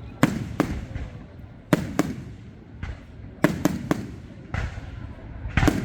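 Fireworks display: aerial shells bursting in about ten sharp bangs at uneven intervals, sometimes two or three close together, each trailing off in a low rumble.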